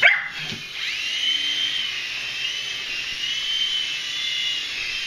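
Small electric RC helicopter's motor and rotors running with a high-pitched whine after a sharp knock at the start; the whine dips, spins back up about a second in, then holds steady.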